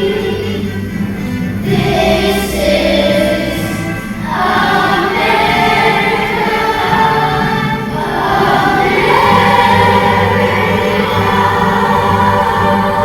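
A choir singing held notes over an instrumental accompaniment.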